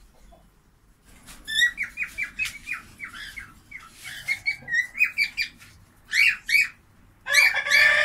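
Cockatiels chirping: after a brief lull, a quick run of short, high chirps, several a second, then a louder, longer screech near the end.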